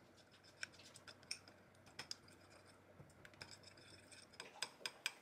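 Small metal spoon stirring sauce in a small ceramic bowl, scraping and clinking against the bowl: scattered sharp clicks at first, then a quick run of about five clinks near the end.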